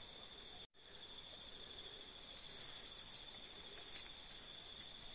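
Steady, high-pitched drone of insects in the forest, faint, with a few small rustles; the sound cuts out completely for a moment just under a second in.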